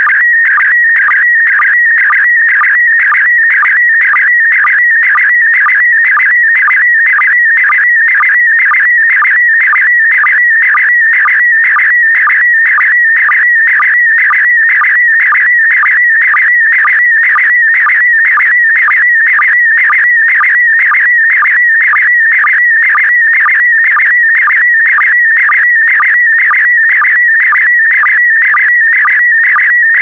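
Slow-scan television (SSTV) signal in PD120 mode: a loud, continuous warbling tone centred around 2 kHz, broken by a short sync pulse about twice a second, as the lines of a colour picture are sent.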